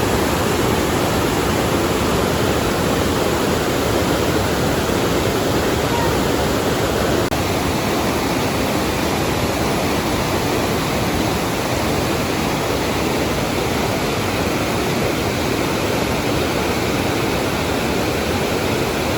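Loud, steady rush of river water pouring through an old mill's channel just below, the Arno running high after heavy rain. The noise is even and unbroken, and it starts and stops abruptly.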